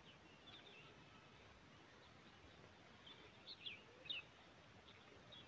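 Near silence, with a few faint, short, high bird chirps, the clearest about three and a half to four seconds in.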